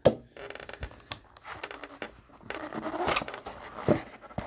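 Cardboard trading-card box being opened and handled with gloved hands: rustling and scraping of cardboard, with a sharp knock right at the start and another near the end.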